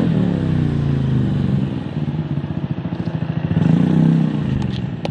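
Yamaha Mio 125S scooter's single-cylinder four-stroke engine through an aftermarket Akrapovic Hexatip slip-on exhaust: revs falling away from a rev to a pulsing idle, then a short blip of the throttle about three and a half seconds in that drops back to idle.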